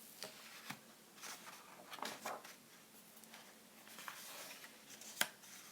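Faint handling noise: soft rustles and small clicks, with one sharper click about five seconds in.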